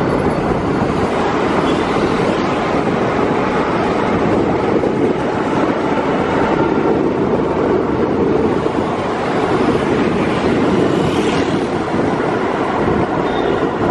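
Steady rush of wind and road noise from riding a motorbike along a wet road, with the bike running underneath.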